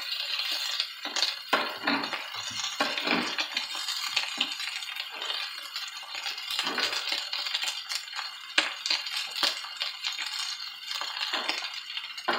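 Sliced onions and sausage pieces frying in a hot pan, a steady sizzle with frequent small pops and crackles.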